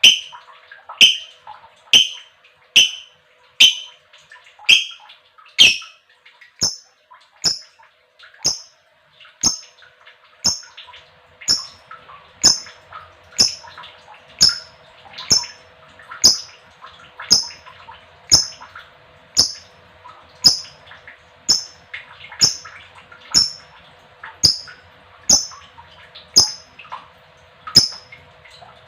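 Lovebird giving short, shrill calls at a steady pace of about one a second, with faint chatter between them and a low steady hum underneath.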